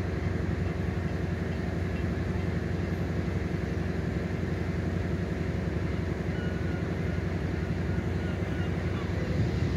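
Steady low hum with several even low tones from the PolRegio Impuls II EN63H hybrid multiple unit approaching from far off, holding at much the same level.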